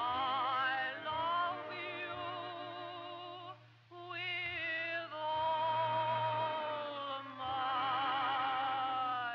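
Background music: an operatic singing voice holding long notes with strong vibrato, with a short break about four seconds in.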